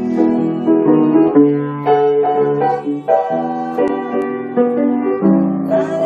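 Instrumental song accompaniment led by piano or electric keyboard, playing chords and a melody with no voice.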